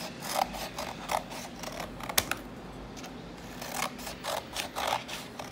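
Scissors snipping through thin cardboard, a run of short, irregular cuts trimming the excess edge off a rolled cardboard cone, with one sharper click a little past two seconds in.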